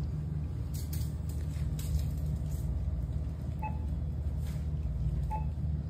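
Steady low store background hum and rumble, with a few faint clicks and two short faint high tones a couple of seconds apart.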